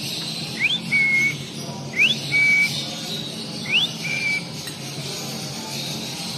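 Three two-part whistles about a second and a half apart, each a quick upward sweep followed by a lower, steady held note.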